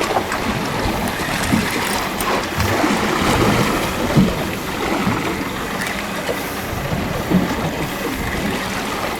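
Sea water sloshing and lapping against a boat's hull, a steady rushing wash with scattered low knocks.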